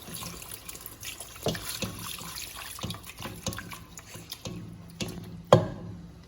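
Chicken broth being poured into a skillet of butter-and-flour roux and stirred: liquid splashing, with scattered clicks and knocks of the utensil against the pan. The loudest knock comes near the end.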